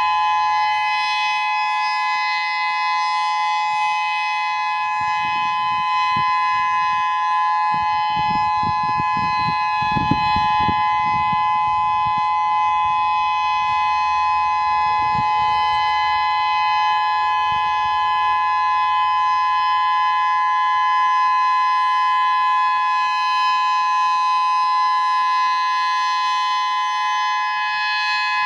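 Whelen 3016 electronic outdoor warning siren sounding its steady alert signal: two close, unwavering pitches just under and at about 1 kHz, held at a constant level.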